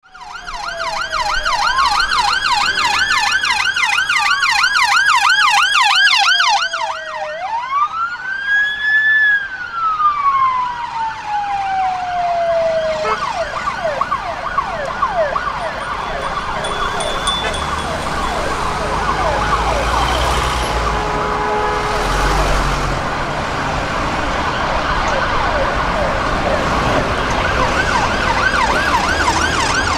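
Electronic sirens of two unmarked police cars responding. One is on a fast yelp; the other sounds slow wail cycles that rise and fall over several seconds, heard plainly twice in the first half. After that the fast yelp carries on over the noise of city traffic.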